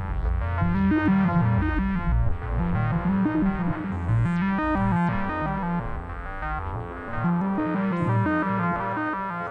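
RYK Modular Night Rider Eurorack synthesizer module playing a fast sequence of short pitched notes over a repeating bass line.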